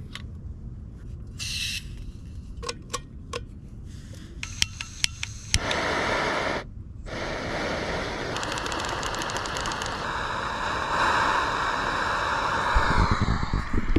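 Small knocks and clicks as an integrated gas canister stove is fitted together. About five and a half seconds in, a sharp click and a steady gas hiss start; the hiss breaks off briefly, then continues as the burner runs under the pot, stronger near the end.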